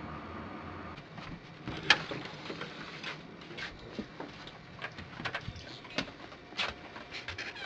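Scattered clicks and knocks of a door being opened and a border collie and a person going out onto a porch. The sharpest knock comes about two seconds in, followed by lighter taps of footsteps and claws.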